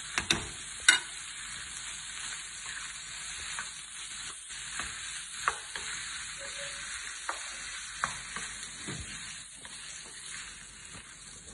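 Squid rings coated in chermoula sizzling steadily in a frying pan as they are stirred with a wooden spoon, with a few sharp knocks of the spoon against the pan.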